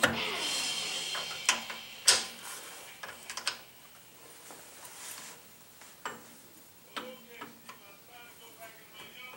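Sharp metal clicks and taps as levers and knobs are fitted by hand to the cast-iron headstock of an Atlas horizontal milling machine. A handful of separate ticks, the loudest at the start and about two seconds in.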